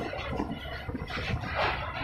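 Passenger train running over a steel truss bridge: a steady low rumble of the wheels on the rails, with irregular rattling and clatter from the coach.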